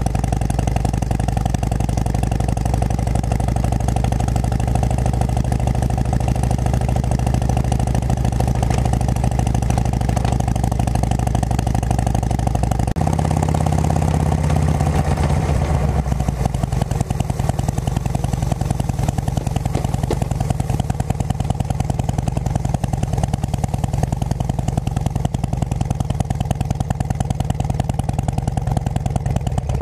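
Harley-Davidson Road King Classic's Twin Cam 88 V-twin engine running through Cycle Shack aftermarket pipes while the bike is ridden. Its note changes about 13 seconds in and again a few seconds later.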